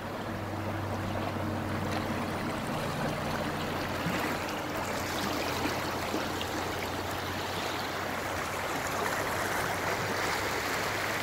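Small river rapids: a steady rush of running water around a float tube, with a faint low hum underneath.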